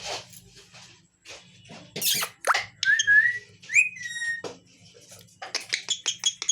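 Pet parrot calling: a loud harsh screech about two seconds in, then short whistled notes that rise and fall, and a quick run of clicks near the end.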